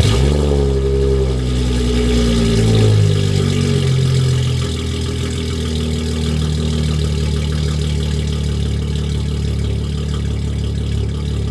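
Audi B8 S4's supercharged 3.0-litre V6 starting up with test pipes in place of the catalytic converters. The revs flare and fall over the first few seconds, then settle into a steady, loud idle.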